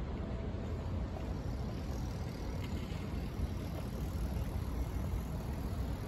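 Wind buffeting the microphone: a low, irregularly fluctuating rumble.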